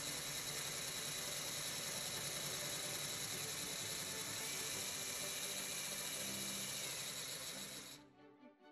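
Cordless drill spinning an aircraft cylinder's exhaust valve against its seat to lap it with grinding compound: a steady whir with grinding that stops suddenly about eight seconds in.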